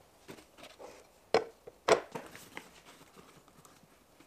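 Plastic jugs and tubs being set down and handled on a wooden workbench: a series of light knocks and clatters, with two loud knocks about half a second apart near a second and a half in.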